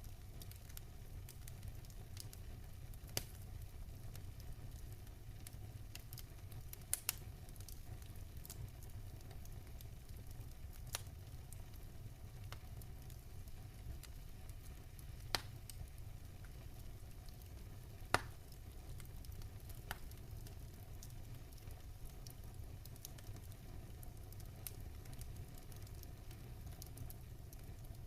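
Campfire burning with a soft crackle and a low steady rumble, broken every few seconds by a sharp pop from the burning wood.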